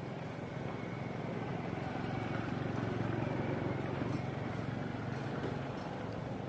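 Low, steady hum of an unseen motor engine, growing louder about two seconds in and easing off near the end.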